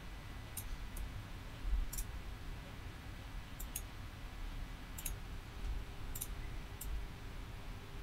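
Computer mouse buttons clicking while spline points are selected and dragged in CAD software: about eight short, sharp clicks at irregular intervals, some in quick pairs, over a low background rumble.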